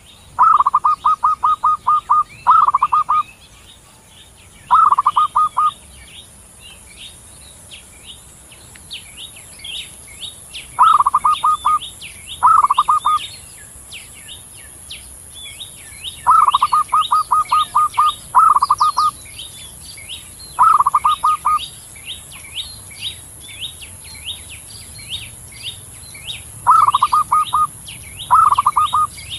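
Zebra dove (perkutut) cooing: loud phrases of quick, staccato rolling notes, repeated about ten times with pauses between. Faint high chirping goes on throughout.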